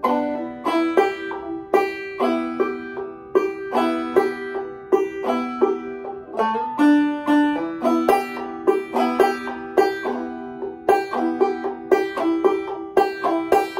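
Gold Tone five-string banjo played clawhammer style: a steady run of struck notes and chords, with one note held longer about six and a half seconds in.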